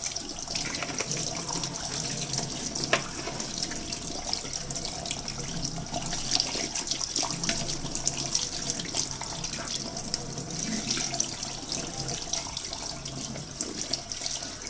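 Kitchen tap running steadily, water splashing as the dishwasher filter is rinsed clean under it.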